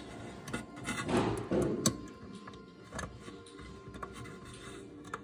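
Light clicks and scrapes of multimeter test probes being handled against a switch's metal spade terminals.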